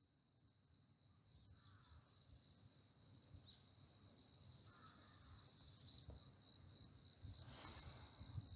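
Faint, steady, high-pitched insect trill with a few soft chirps over it. A fuller outdoor ambience fades in near the end.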